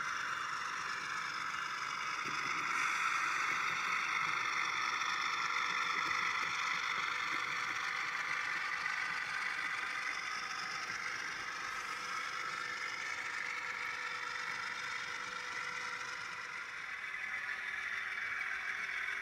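HO-scale model diesel locomotive running with its freight train along the track: a steady whir from the motor and gearing whose pitch wavers slowly, with a light rattle of wheels on the rails.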